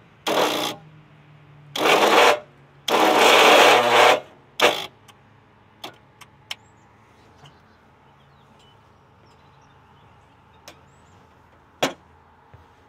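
Agway GT 1846 garden tractor's starter cranking the engine on a jump-starter pack's boost, in four short bursts, the longest about a second; a few faint clicks follow. The tractor's own battery is weak.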